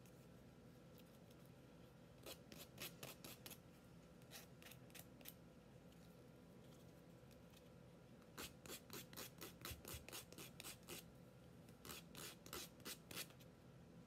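Edges of a small laser-cut wooden heart being sanded by hand to round them off: faint, quick rasping strokes, about three or four a second, in several short runs with pauses between.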